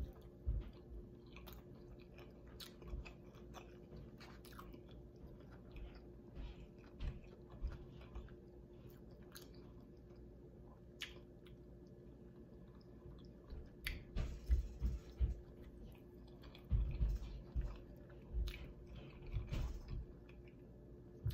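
Close-miked biting and chewing of a soft street taco, with many small mouth clicks. A run of louder low thumps comes in the second half.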